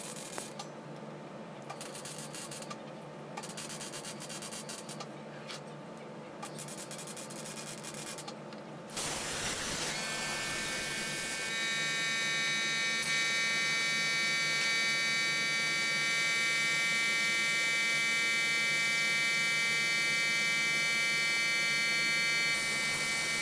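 MIG welding steel box section in about six short bursts of arc crackle with brief gaps. After about nine seconds this gives way to a louder steady hissing whine with fixed tones, an air plasma cutter running on thin mild steel sheet.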